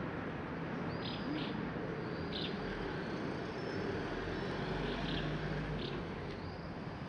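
Town street ambience: a steady hum of distant traffic, with small birds giving short high chirps every second or so.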